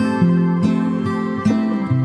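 Background music: a gentle plucked acoustic guitar tune, with notes changing about every half second.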